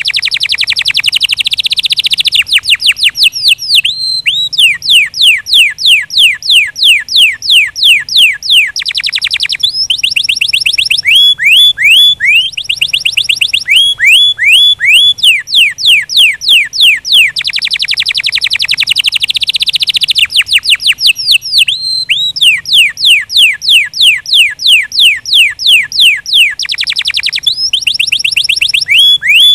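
Domestic canary singing: long runs of loud, repeated whistled notes, each sweeping down in pitch, at about five a second, switching every few seconds to faster, denser trills and brief pauses between phrases.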